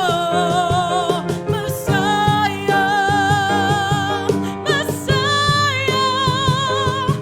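Worship music with a singer holding long, wavering notes over guitar and other instruments.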